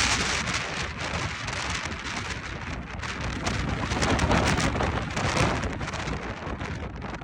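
Strong wind in a windstorm: a dense hiss that swells and eases in gusts, crackling with many fine ticks.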